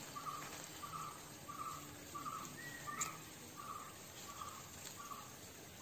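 A short chirp repeating steadily outdoors, about three every two seconds, with a single sharp click about three seconds in.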